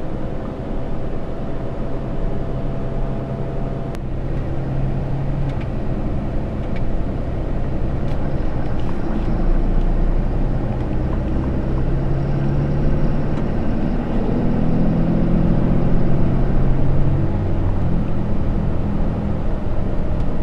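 Cab interior sound of a 2013 Ram 3500 dually pickup driving along, its 6.7-litre Cummins inline-six turbo diesel running under road and tyre noise. The engine note changes pitch about two-thirds of the way through.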